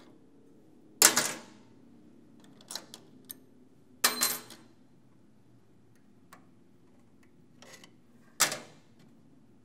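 Metal parts and hand tools clanking and clicking against a steel workbench while a record player's stamped-steel changer mechanism is taken apart: three sharp clanks with a brief ring, about a second in, about four seconds in and near the end, with a few lighter ticks between.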